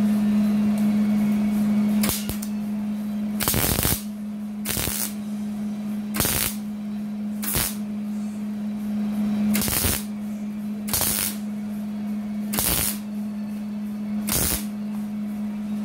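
MIG welder laying short stitch welds on thin sheet steel, nine brief bursts of arc noise with pauses of one to two seconds between them, over a steady low hum. The welds gap-fill a rocker-panel patch seam backed by an aluminum heat sink so the thin steel does not blow through.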